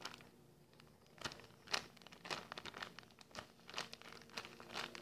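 Clear plastic bag crinkling in faint, irregular crackles as the foam squishy toy inside it is handled and squeezed.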